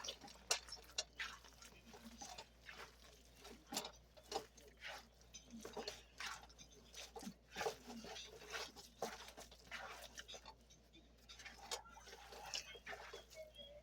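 Hands squishing and kneading raw ground beef mixed with eggs for a meatloaf: faint, irregular wet squelches.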